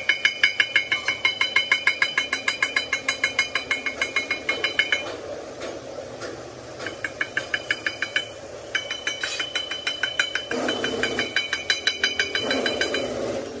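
A steel bar tool rapped rapidly against a steel front axle housing during a weld repair, metal striking metal about five times a second with a ringing tone. The strikes come in runs with short pauses.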